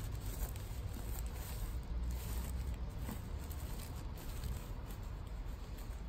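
Soft rustling of a cotton sweatshirt being handled, with hands brushing over its flip sequins and lifting the fabric.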